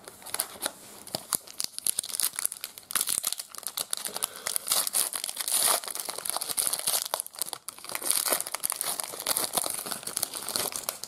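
Foil trading card pack wrapper being torn open and crinkled by hand, a dense crackle with a short lull about seven seconds in.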